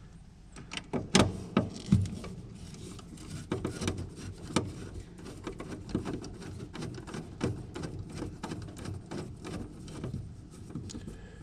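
Hand-tool work on an HVAC unit: a run of small irregular clicks, taps and knocks as a screw is worked out and metal parts are handled, with a few louder knocks about one to two seconds in.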